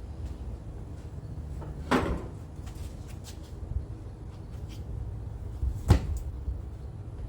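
Rocks knocking against each other and the cart as they are handled and set down: a heavy knock about two seconds in, a sharp one near six seconds, and a few lighter clicks, over a low steady rumble.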